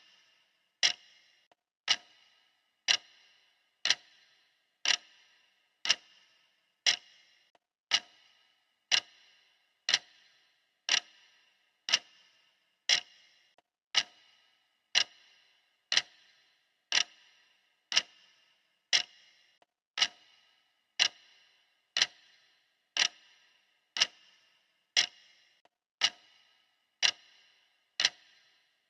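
Clock ticking steadily, one sharp tick per second, as a countdown timer's ticking track.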